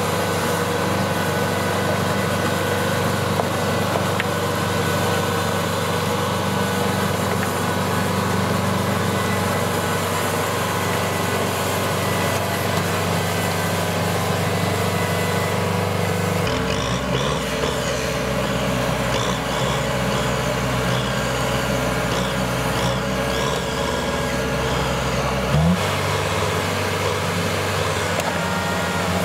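Diesel engine of a Kubota DC70 combine harvester running steadily as the tracked machine works through the mud. The engine note changes abruptly about two-thirds of the way through, and there is a brief rise in pitch near the end.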